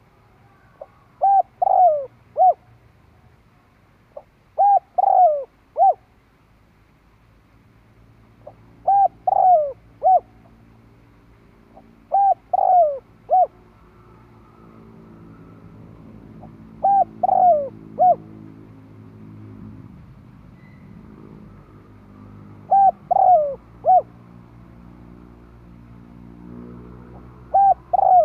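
Spotted dove cooing: a phrase of three or four low coos with a drawn-out, falling middle note, repeated seven times about every four to five seconds.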